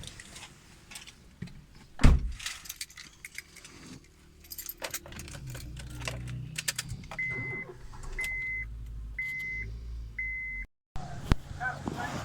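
Car keys jangling and a loud door thump about two seconds in. Then a car engine starts and runs at idle, while the dashboard gives four evenly spaced high beeps.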